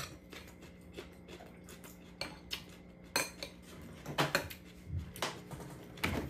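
Metal fork and spoon clinking and scraping against ceramic dishes while eating: a string of irregular clinks, the loudest just after three seconds, around four seconds and near the end, over a faint steady hum.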